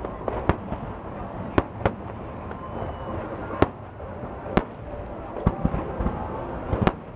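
Fireworks display: aerial shells bursting with sharp bangs at irregular intervals, several in quick succession near the end, over a steady background rumble.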